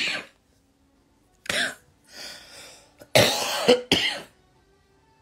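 A woman coughing in several harsh bursts, the loudest cluster about three seconds in.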